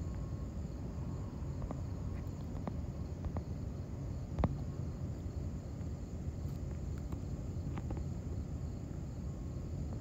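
Steady low background rumble with a faint high steady tone running through it, broken by a few soft clicks, the sharpest about halfway through.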